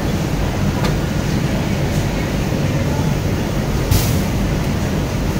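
Steady mechanical hum of a garment factory workroom, with a few light clicks, the sharpest about four seconds in, as small metal sewing-machine parts are handled.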